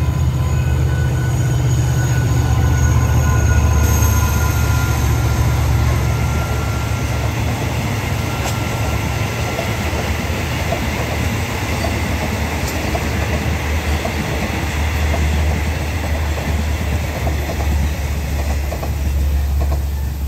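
QSY-class diesel locomotive 5212 of the State Railway of Thailand runs past hauling a passenger train, its engine giving a low rumble that is loudest in the first few seconds. The coaches follow, their wheels clicking over the rail joints as the train rolls away.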